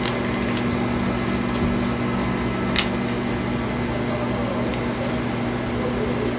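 Microwave oven running with a steady electrical hum while heating water for gelatin, with one short click about three seconds in.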